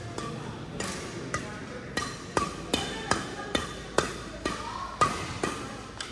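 Badminton rackets striking a shuttlecock in a fast exchange, sharp hits about two a second.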